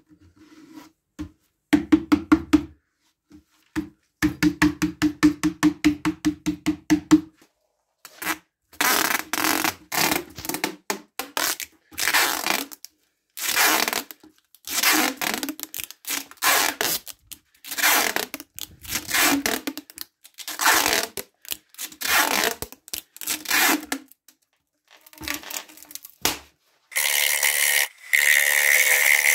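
An abrasive strip rubbed back and forth around a stationary wooden hollow form, in a long series of rubbing strokes about one a second. Near the end the lathe is running and a hollowing tool cuts inside the spinning alder form with a steady hiss. A few seconds in there are two runs of quick, evenly spaced clicks.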